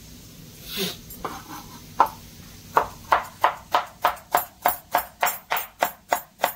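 Knife chopping fresh herbs on a board: a couple of single strokes, then a steady run of about three chops a second from a little under halfway in.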